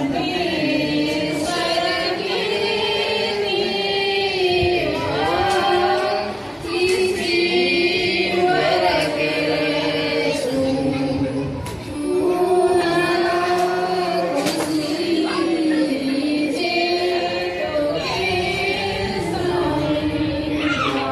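A group of women singing a song together, the lead voices sung into microphones, with short pauses between phrases about six and twelve seconds in.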